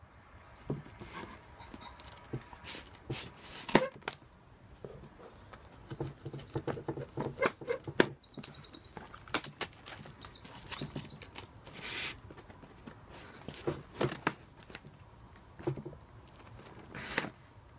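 Folding pocketknife cutting through plastic packing straps and packing tape on a cardboard box, with irregular scrapes, snaps and rustles of the cardboard and tape being handled; the loudest snaps come about four and eight seconds in. Faint bird chirps sound briefly midway.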